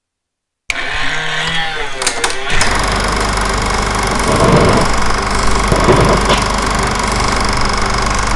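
Film projector sound effect with the countdown leader: a steady mechanical whirr and clatter with a low hum. It starts abruptly just under a second in, shifts for a couple of seconds, then runs steadily.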